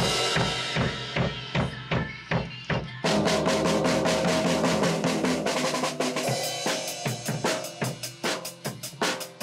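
Acoustic drum kit played with sticks along to a pop song's backing track: a steady beat of bass drum, snare and cymbals. About three seconds in the sound grows fuller and denser, and from about six seconds the hits become sparser.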